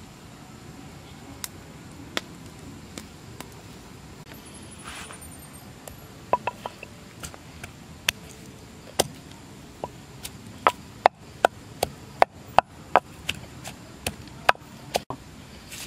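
Wooden pestle pounding garlic cloves in a wooden mortar: sharp knocks, a few scattered ones at first, then a quicker run of about two to three a second in the last third.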